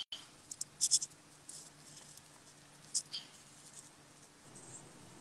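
A few faint, short clicks over quiet room tone with a faint steady hum.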